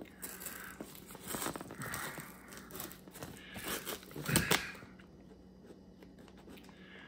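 Knife blade slicing the packing tape along the seam of a cardboard box, in irregular scraping strokes, the loudest cut about four and a half seconds in, fainter after that.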